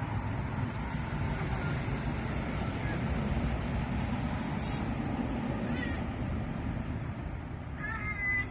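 A cat gives one short meow near the end, over a steady low background rumble.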